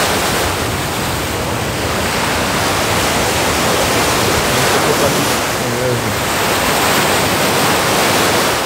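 Strong sea waves breaking and washing, a loud continuous rush of surf.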